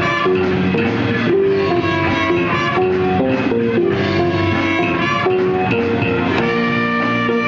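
Live band playing a funk-jazz tune, with a steady run of changing notes.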